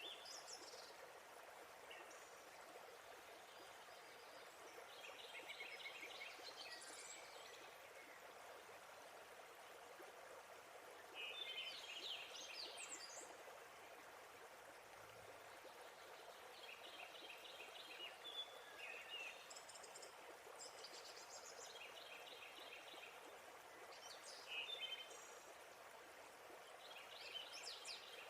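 Faint, steady rush of falling water, with birds singing short phrases of quick repeated notes every few seconds.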